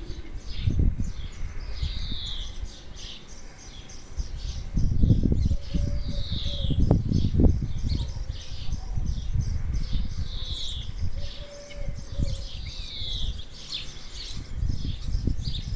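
Garden birds singing: one bird repeats a short falling phrase every few seconds among many short chirps from others. Under it runs a low rumbling noise that is the loudest thing, swelling most from about five to eight seconds in.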